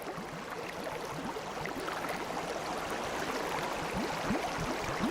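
Water gurgling and lapping, with many small bubbling plops over a steady wash.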